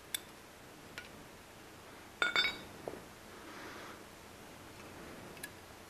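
Metal clinks from motorcycle brake caliper parts and tools being handled: a few light clicks, and a quick cluster of ringing clinks about two seconds in.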